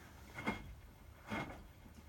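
Hotpoint WMFUG 942 washing machine drum tumbling a medium load of wet towels during the heating stage of a 60° wash: a soft swish as the load drops, coming about once a second, twice here.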